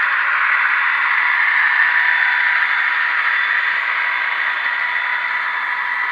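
HO-scale model freight train rolling past on its track: a steady, even whirr of wheels on the rails with a faint steady whine.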